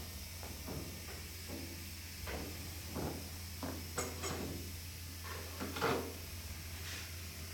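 Scattered scuffs, rustles and light knocks of hands handling cardboard packing on a pallet jack, the loudest about four and six seconds in, over a steady low hum.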